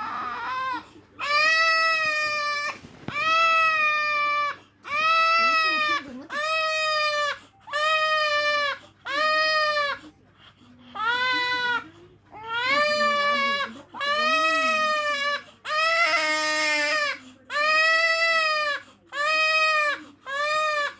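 A baby crying hard in a steady run of long wails. Each wail is about a second long and rises then falls slightly in pitch, with short gaps between them.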